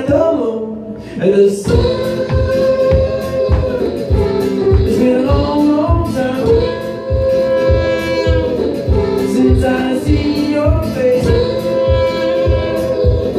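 Live loop music: layered, wordless looped vocal harmonies held over a steady looped beatbox beat.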